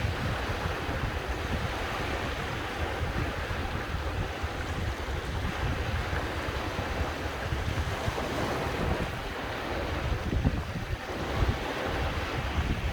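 Sea waves washing steadily, with wind buffeting the microphone in a low rumble.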